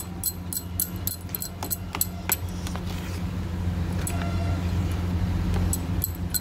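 Steel spoon beating thick besan batter for dhokla, clinking against the bowl in quick strokes, about three or four a second at first, then a few more clinks near the end. A steady low hum runs underneath.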